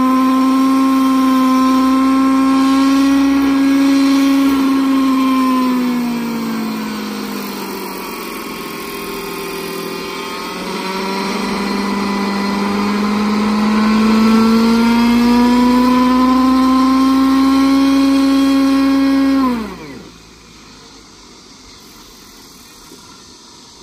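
Hirobo EC-135 scale RC helicopter whining steadily. Its pitch sags for a few seconds and climbs back, then falls sharply and cuts off about twenty seconds in, leaving faint background noise.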